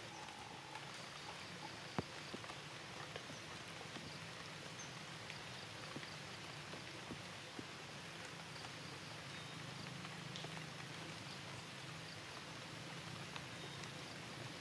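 Light rain and water dripping in the forest, a steady soft hiss scattered with small drip ticks and one sharper tick about two seconds in.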